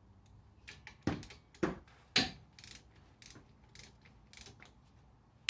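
Hand tools at work on a car's front brake and hub assembly: a run of sharp metallic clicks and knocks, roughly two a second, starting about a second in.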